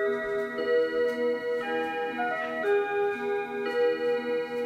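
Seiko Melodies in Motion wall clock playing one of its built-in electronic melodies, a tune of held notes over a repeating lower accompaniment. Faint clicks from the clock's gear and motion mechanism sound through the music; the owner notes these gears are audible even while the music plays.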